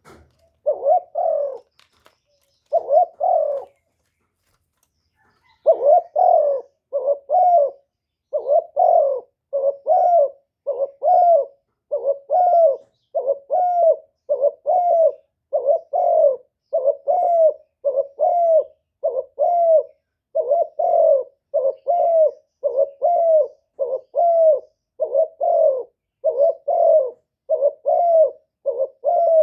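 Spotted dove cooing: two phrases, a short pause, then the same cooing phrase repeated steadily about once a second.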